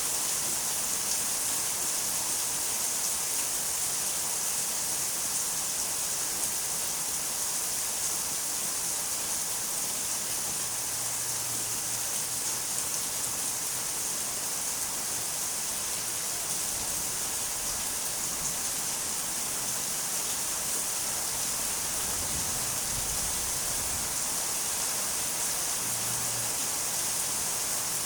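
Steady rain falling, an even, unbroken hiss with most of its energy high up; a faint low hum comes and goes.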